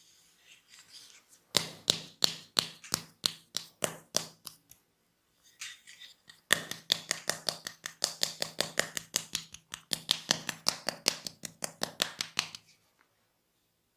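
Rhythmic percussive massage strokes: hands slapping or chopping on the body in quick even beats. A first run of about three slaps a second stops; then, after a short pause, a faster run of about five a second follows.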